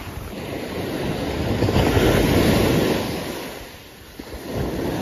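Ocean surf breaking on a sandy beach: a wave swells and crashes about two seconds in, washes out and fades, and the next one starts to build near the end.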